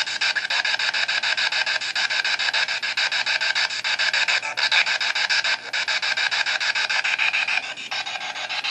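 Spirit box (ghost box radio) sweeping the FM band: hissing static chopped into a rapid, even stutter as it jumps from station to station.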